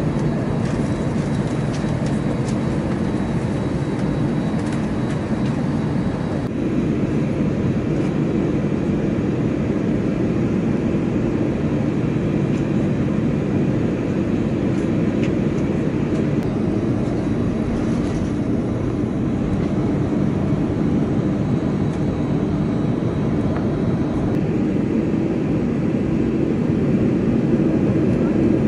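Airbus A319's CFM56 turbofan engines running at low taxi thrust, heard from inside the cabin as a steady low drone. It grows slightly louder near the end.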